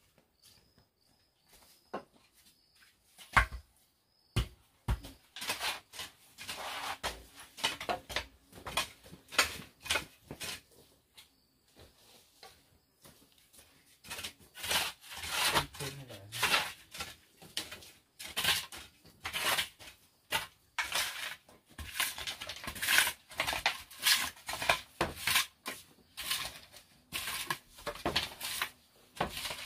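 Metal shovel scraping and scooping damp soil across an earthen floor in repeated strokes, after a few sharp knocks. Crickets chirp faintly in the first few seconds.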